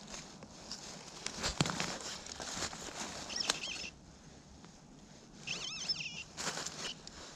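Dry leaves rustling and soil being scraped, with sharp clicks, broken by a few short squeaky warbling tones from a metal detector that rise and fall in pitch as the coil passes over a buried target.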